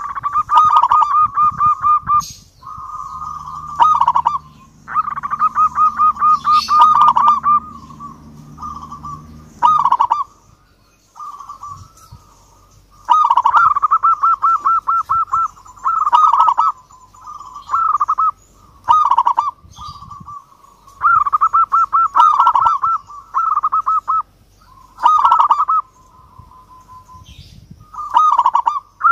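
Zebra dove (perkutut) cooing song: phrase after phrase of rapid, staccato cooing notes at a steady pitch, each phrase a second or so long with short pauses between.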